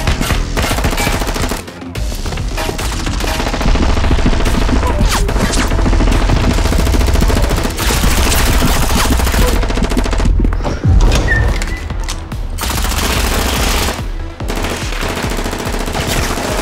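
Rapid, sustained gunfire: bursts of automatic fire that break off briefly a few times, over a music track.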